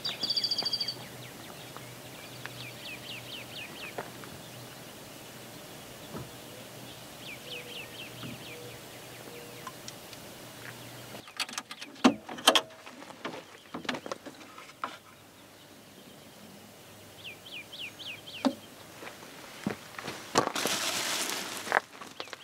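Birds calling in short chirping trills over quiet outdoor ambience. About halfway through, a series of sharp clicks and knocks as a fold-down table on a Jeep's rear tailgate is unlatched and lowered, then loud plastic-bag crinkling near the end.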